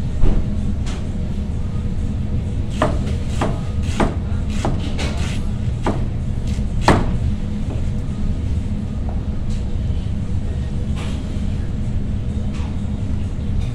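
Large kitchen knife chopping a head of cabbage on a cutting board: irregular knocks of the blade against the board, bunched close together in the first half and sparser after, over a steady low hum.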